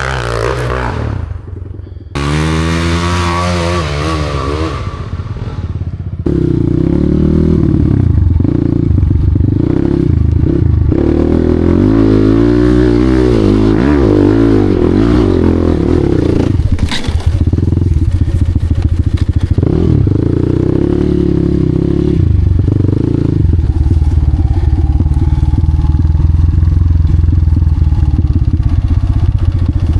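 Enduro dirt bike engine running hard, its revs rising and falling again and again, with a sharp knock a little past halfway.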